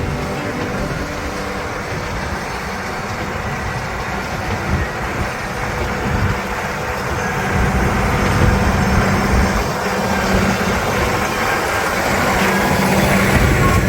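Large farm tractor and its baling machinery running steadily, a continuous mechanical noise with a low engine hum that strengthens about halfway through.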